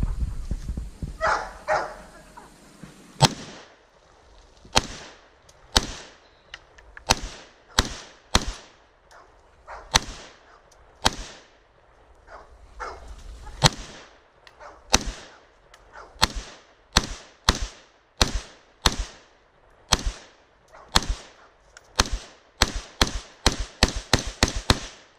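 Smith & Wesson M&P15 AR-15 in .223 fired semi-automatically, about two dozen sharp shots each with a short ringing tail. The shots begin about three seconds in, come roughly one to two a second, then speed up into a rapid string near the end as the 30-round magazine is emptied.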